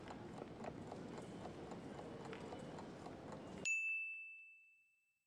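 Faint background ambience of scattered footsteps over a low hubbub, cut off about three and a half seconds in by a single bright bell ding that rings out and fades to silence. The ding is the quiz timer's time-up signal.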